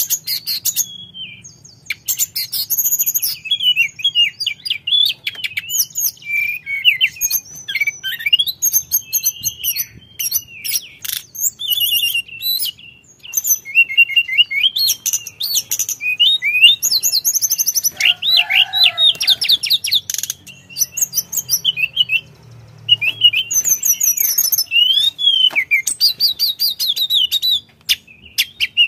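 Male hill blue flycatcher singing without a break: fast, varied high whistled phrases, sweeping notes and rapid stuttering trills, with a few short pauses.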